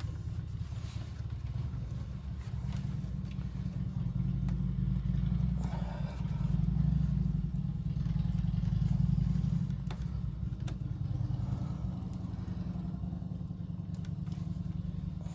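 A steady low rumble, with scattered light clicks and scrapes from hands working a serpentine belt onto the engine's pulleys.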